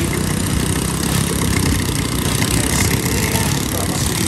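Long-tail boat engine running steadily, its propeller churning the water at the stern.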